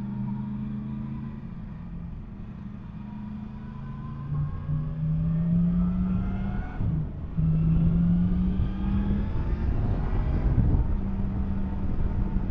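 Yamaha MT-10 SP's crossplane inline-four engine, heard from on the bike as it rides: running steadily at first, then the revs climb about four seconds in, with a short dip at a gear change about halfway, before pulling on again. There is a low rumble of wind and road under the engine.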